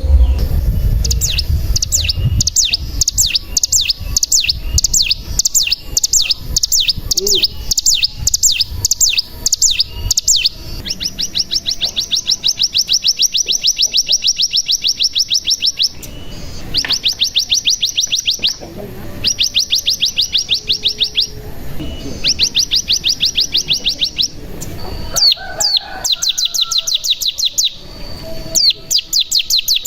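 Ciblek gunung (mountain prinia) singing: a run of sharp high notes about two a second, then several long rapid trills of a few seconds each, the 'ngebren' trill, broken by short pauses.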